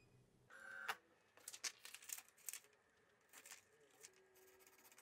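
Faint rustling and crinkling of a sheet of A4 paper slid over a 3D printer's build plate and under the nozzle, in a few short bursts. The paper is used as a feeler gauge while levelling the bed.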